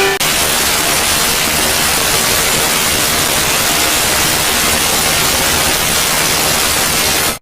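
Loud, steady static hiss like white noise, spread evenly from low to high pitch, cutting off suddenly near the end.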